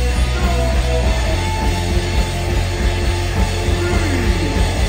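Punk rock band playing loud and live: electric guitar over drums, with no break.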